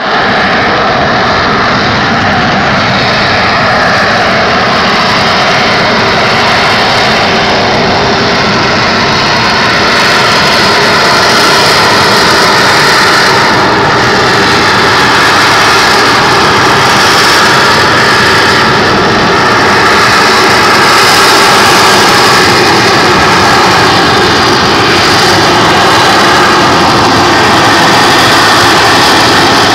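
AV-8B Harrier jump jet's Pegasus turbofan running loud and steady as the jet hovers: a dense jet roar with a layered high whine.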